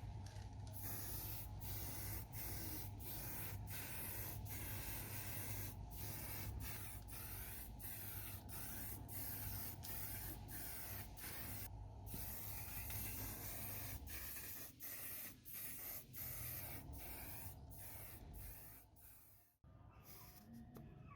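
Paint spraying: a loud hiss in repeated passes broken by brief gaps, over a low steady hum that stops about two-thirds of the way through.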